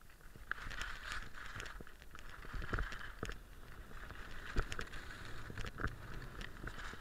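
Skis sliding and carving on groomed, packed snow: a steady scraping hiss that starts about half a second in, broken by many sharp clicks and knocks.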